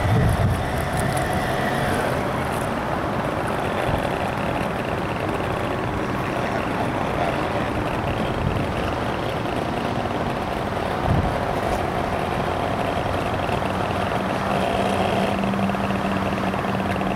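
Radio-controlled model tug boat's motor running steadily as the boat cruises, a steady hum with a rushing background; a deeper steady tone joins about three-quarters of the way through as the boat comes in close.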